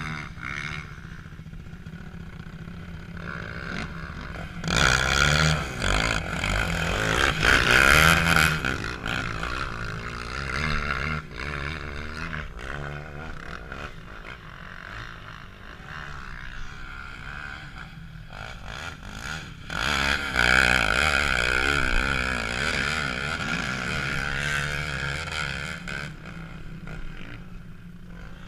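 Sport ATV engines revving up and down, loudest about five to nine seconds in and again from about twenty to twenty-six seconds in, with a lower, steadier engine rumble between.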